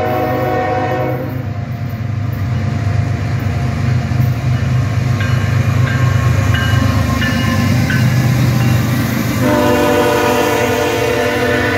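Norfolk Southern freight train's diesel locomotives sounding an air horn chord that cuts off about a second in. The engines and wheels then run past loudly, and the horn sounds again near the end.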